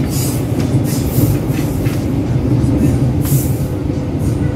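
Commuter electric train running between stations, heard from inside the car: a steady low rumble with brief high hisses now and then.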